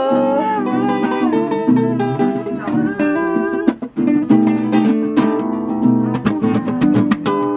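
Live acoustic music on plucked string instruments, strummed and picked, with quick rhythmic strums through the second half.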